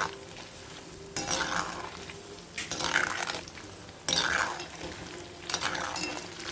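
Spice-coated boiled egg pieces sizzling as they deep-fry in hot oil, stirred in the pan in four surges about every one and a half seconds.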